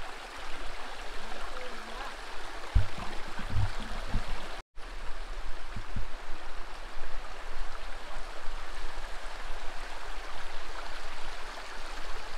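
Shallow rocky mountain creek running steadily, an even rush of water, with a few short low thumps about three and six seconds in. The sound cuts out for an instant a little before halfway.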